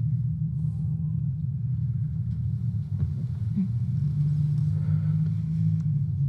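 A low, steady droning rumble from a film soundtrack, made of a few held low tones. The tones shift slightly about four seconds in.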